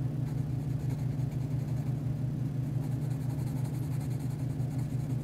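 Steady low hum and rumble of a washer and dryer running in the background, with faint scratching of a coloured pencil shading back and forth on drawing paper.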